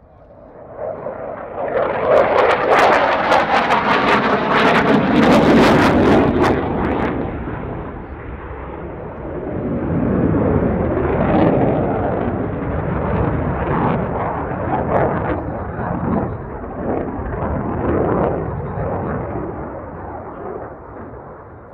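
Saab JAS-39C Gripen's single Volvo RM12 jet engine during a display pass: a loud rumble that swells about a second in with a crackling edge for several seconds, eases, swells again and fades near the end.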